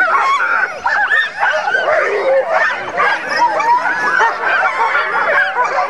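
Harnessed sled dogs barking and yelping together in a dense, unbroken chorus of many overlapping voices. It is the excited noise of a team hooked to the gangline and waiting to run.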